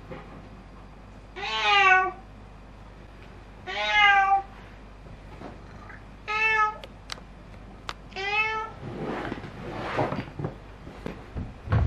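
Domestic cat meowing four times, each call about half a second long and bending in pitch, spaced about two seconds apart. Then a few seconds of rough scuffing as the cat rubs its face along a wooden stair edge.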